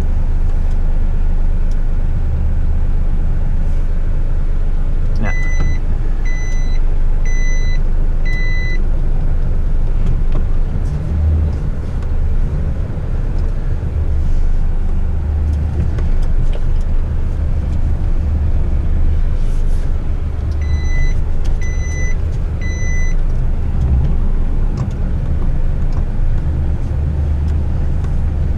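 Front-lift rubbish truck's diesel engine idling steadily, heard from inside the cab. Short electronic beeps sound over it: four about five seconds in and three more about twenty-one seconds in, each set less than a second apart.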